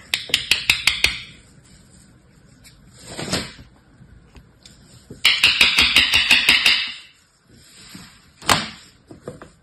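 Rapid taps on a plastic kinetic-sand mold, with a gritty crackle of the sand, in two runs of about six taps a second: one at the start, a longer one a little past halfway. There is a single sharper knock near the end.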